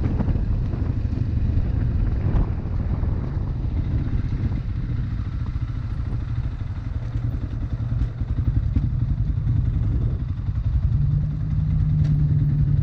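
Motorcycle engine running as the bike rides along and slows down; about eleven seconds in the engine note settles into a steady low hum, as at idle.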